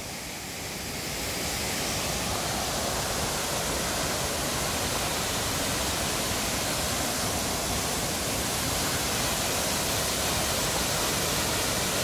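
Steady rushing of a multi-tiered waterfall pouring into pools, growing louder over the first second or two and then holding even.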